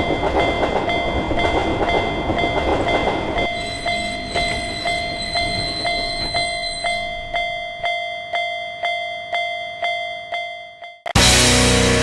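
Japanese railroad-crossing warning bell ringing about twice a second while a freight train rumbles past. The train noise dies away after about three seconds and the bell rings on alone, fading. Near the end, distorted electric-guitar rock music starts abruptly.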